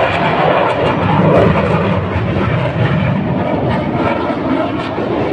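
Two military jet aircraft passing overhead: a loud, steady jet roar that swells about a second in and then eases slightly.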